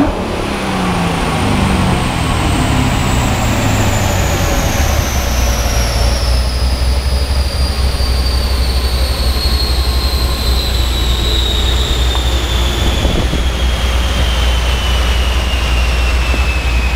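A car's wheels and chassis dyno rollers coasting down after a full-throttle pull, with the throttle closed. The engine's revs fall away over the first few seconds. A high whine then falls slowly in pitch as the rollers spin down, over a low steady drone.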